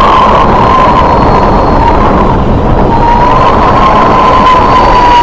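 Storm wind at sea: a loud, steady rush of gale and spray noise with a high, wavering whistle, typical of wind howling through a ship's rigging and superstructure. The whistle dips away about two seconds in and returns about a second later.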